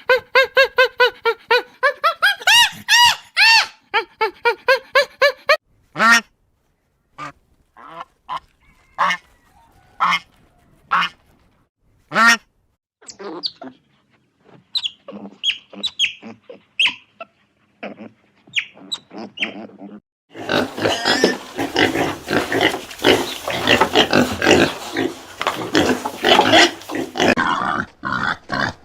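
Animal calls in three stretches. First comes a rapid run of short pitched calls, several a second, then scattered single calls with pauses between them. About two-thirds of the way in, a dense, noisy stretch of many overlapping calls begins and runs on.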